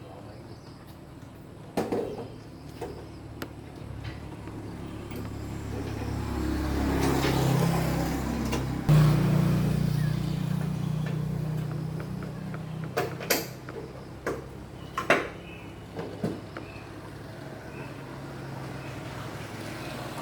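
A vehicle engine's low hum swells over several seconds, steps up suddenly midway and then fades away, with a few sharp clicks and knocks.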